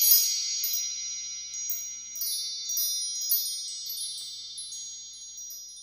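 Sparkly chime sound effect: a shimmer of high ringing tones with little tinkling pings scattered over them, loudest at the start and slowly fading out.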